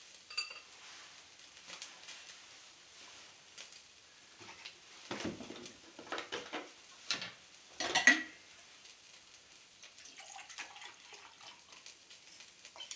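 Scattered clinks and knocks of dishes and utensils being handled, with a small ringing clink near the start and the loudest, ringing clink about eight seconds in. Under them, a faint sizzle of fish grilling over charcoal.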